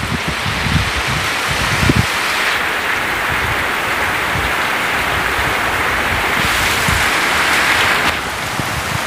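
Heavy rain with wind, a steady hiss of downpour on roofs and foliage. Gusts of wind buffet the microphone for the first couple of seconds.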